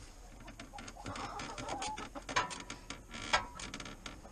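Chickens giving a soft call amid a run of light taps and clicks, with two sharper clicks about two and a half and three and a half seconds in.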